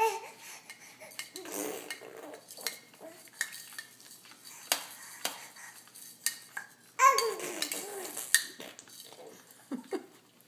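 Infant babbling and vocalizing, with a louder squeal that falls in pitch about seven seconds in. Scattered clicks and clacks come from the plastic toys hanging on the baby bouncer as they are grabbed.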